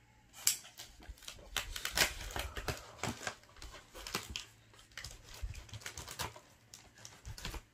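Cardboard box and packing material rustling, scraping and crinkling as hands dig into a tightly packed shipping box, with a quick run of irregular clicks and crackles.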